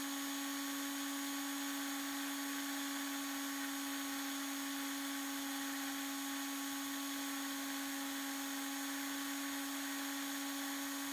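Antique Black & Decker electric drill's brushed motor running steadily with no load, a constant hum at one pitch. It is turning well over its rated 2500 RPM, which the strobe reads at about 2800.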